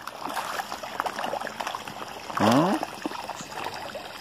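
Irregular splashing and trickling of water as a dense crowd of farmed fish churns the surface of a tank. A short, loud vocal sound breaks in about halfway through.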